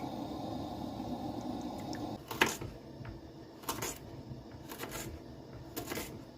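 Kitchen knife cutting on a cutting board: four or five separate strokes about a second apart, the first the loudest. Before the cutting starts there is a steady hum that stops about two seconds in.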